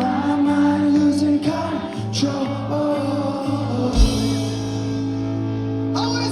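Rock band playing live with a singer over sustained guitar or keyboard chords and a bass line, and a low drum hit about four seconds in.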